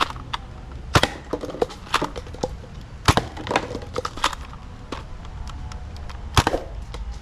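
Sharp plastic clicks and knocks of toy blasters being handled, three louder knocks among many small clicks.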